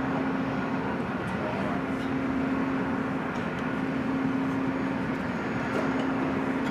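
A steady mechanical drone with a constant low hum, and a few faint clicks.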